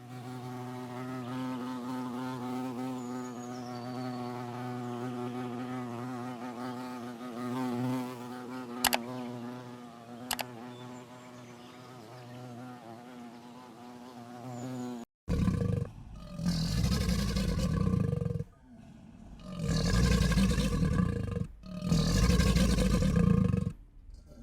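A steady, low buzzing drone with wavering overtones for about fifteen seconds, with two sharp clicks partway through. Then a series of four loud animal roars, each about two seconds long.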